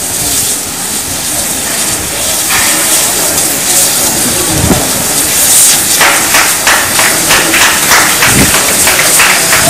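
GWR 2-8-0 steam locomotive 3850 hissing steam steadily; about six seconds in, a quick regular beat of puffs starts, three or four a second, as the engine moves off the turntable.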